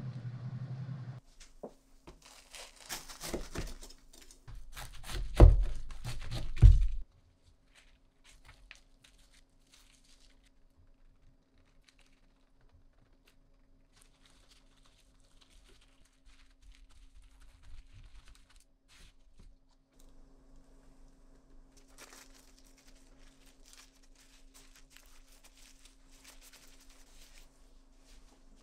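Packaging being crinkled and torn, loudest in the first several seconds with a few sharp knocks, then quieter rustling and handling over a steady low hum.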